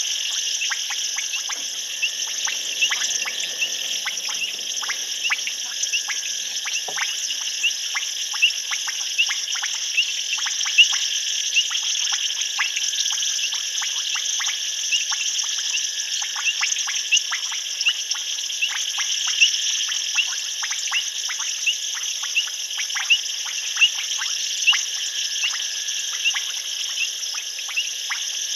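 Night chorus of frogs and insects at a waterhole: a steady high-pitched trilling, with many short, sharp clicking calls scattered irregularly, several a second.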